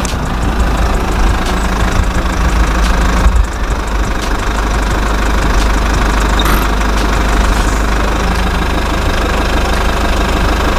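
Homemade toy tractor's small battery-powered electric motor running, a steady whirring with a low rumble underneath.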